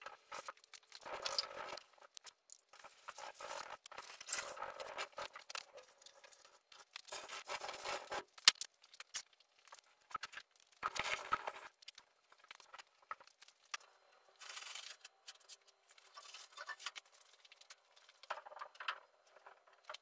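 Gray scuff pad rubbed by hand over a painted truck panel in short, irregular strokes with pauses between them, scuffing down the shiny spots to ready the paint for clear coat.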